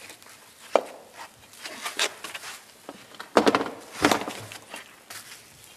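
Hearth stones being set in a ring around a fire pit, knocking and scraping against one another: one sharp knock just under a second in, then a cluster of knocks and scrapes around three and a half to four seconds in.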